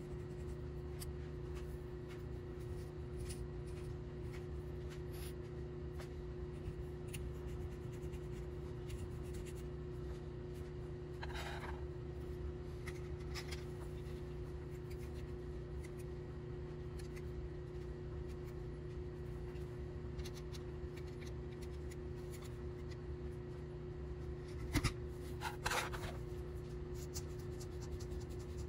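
Light scratching of a small metal file on a thin white styrene plastic tab, filing it down to a rounded edge, over a steady low hum. A few louder short scrapes come about 11 seconds in and again around 25 seconds.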